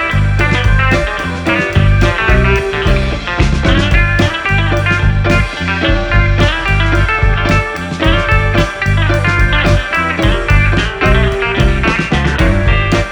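Background music: a song with plucked guitar over a steady bass beat.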